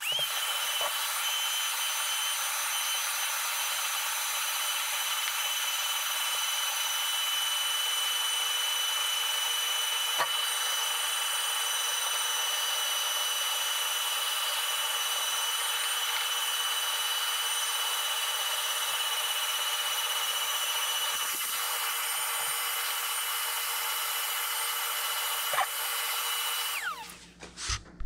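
Vacuum cleaner running steadily with a high whine as its nozzle works over the dust on a portable air conditioner's coils. It is switched off near the end and the whine falls away as the motor winds down.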